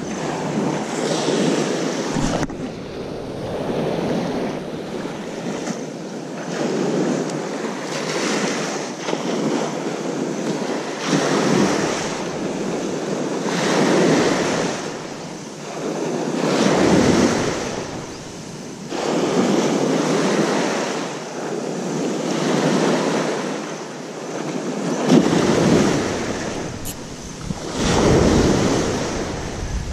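Sea waves washing onto a rocky shore, the noise swelling and ebbing every two to three seconds, with wind buffeting the microphone at times.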